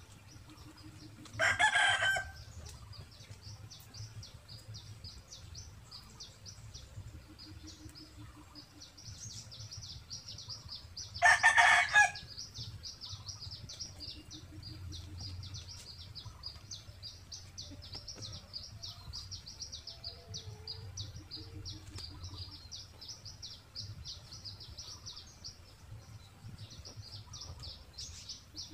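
A chicken calling loudly twice, about ten seconds apart, each call about a second long. Between the calls runs a steady, fast, high chirping.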